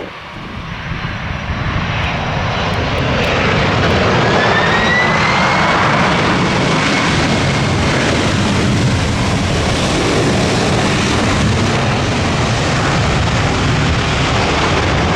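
Airliner engines passing close, loud. The noise builds over the first few seconds, then holds steady with a whistling whine that rises and then falls. It cuts off abruptly at the end.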